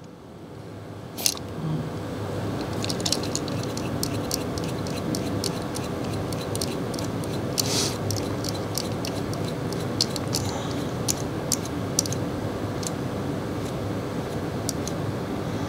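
Handheld pneumatic calibration hand pump being worked to build and trim test pressure: scattered sharp clicks from the pump and its adjusting knob over a steady background noise, with a short hiss near the middle.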